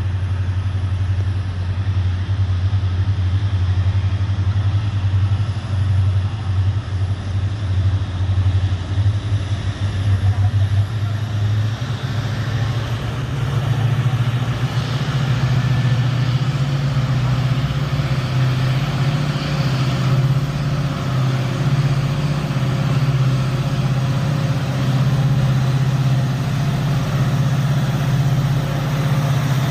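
EMD WDG-4 diesel locomotives, with their 16-cylinder two-stroke engines, throbbing steadily as a loaded freight train approaches. About twelve seconds in, the engine note steps up in pitch and stays higher.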